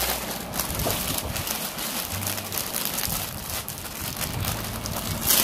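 Clear plastic packaging bags crinkling and rustling as hands handle and open them, with a louder crackle near the end.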